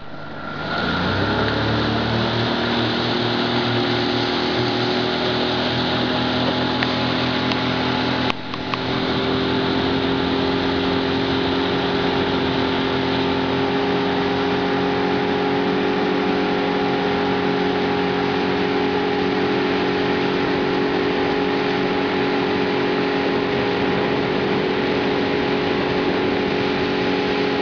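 Outboard motorboat engine running at a steady speed, building up over the first second or so and then holding level. There is a brief click about eight seconds in.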